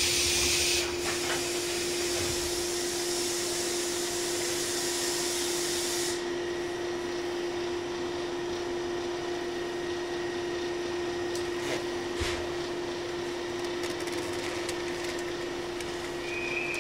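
Inside a 115 series electric multiple-unit train apparently at a standstill: a steady hum from the train's equipment. Compressed air hisses loudly at the start, dies down just under a second in, and a lighter hiss stops about six seconds in.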